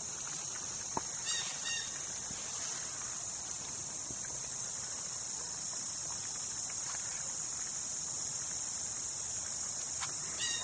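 Steady high-pitched chorus of insects chirping in the grass, with a few faint clicks and a couple of brief chirps about a second in and near the end.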